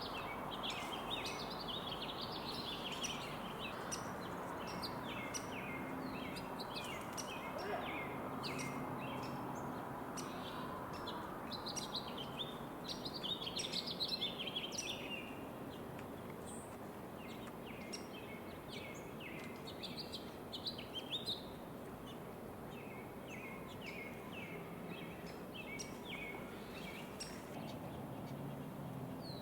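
Small songbirds chirping and twittering in quick, short calls, busiest about halfway through, over a steady outdoor background hiss.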